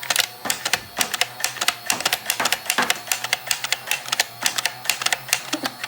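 Rapid, irregular sharp clicks, several a second, running on without a break.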